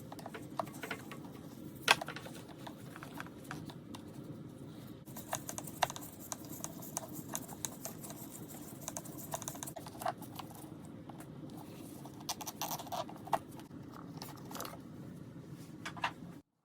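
Irregular light clicks and taps of hand tools and small parts being handled while a motorcycle's handlebar controls and kill switch are taken off, over a steady low hum; the sharpest tap comes about 2 s in.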